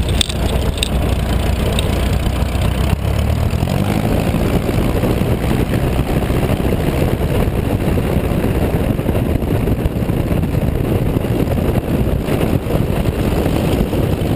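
Van's RV-7A's piston engine and propeller running at low taxi power. The engine note steps up a little about four seconds in.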